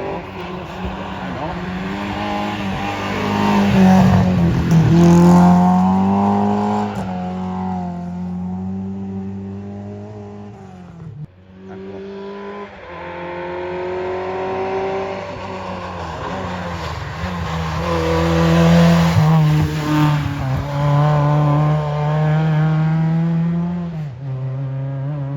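Historic rally cars driving hard through corners one after another, engines revving up and falling back through gear changes. The sound swells loudest twice as cars pass, with an abrupt break about eleven seconds in.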